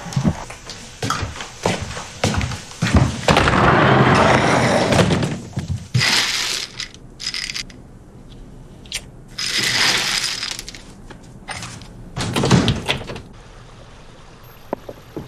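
Handling clatter: a run of knocks and clicks, broken by a few longer stretches of rustling noise, the longest about four seconds in.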